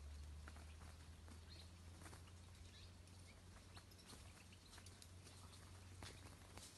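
Near silence outdoors: a faint steady low rumble with scattered soft ticks and a few brief, faint high chirps.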